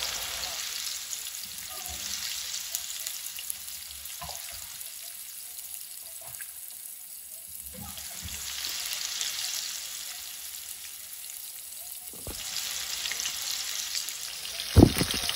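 Bacon-wrapped filet mignons searing in hot oil in a pan: a steady sizzle that swells and eases, with a few faint clicks and a sharp thump near the end.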